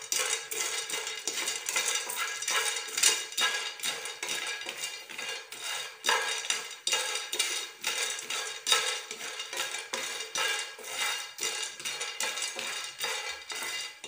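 Wooden spatula stirring raw peanuts dry-roasting in a nonstick frying pan: the peanuts rattle and scrape against the pan in quick, irregular strokes.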